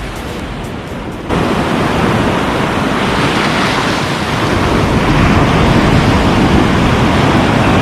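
Sea surf breaking at the shore with wind buffeting the microphone: a loud, steady rush that cuts in abruptly about a second in.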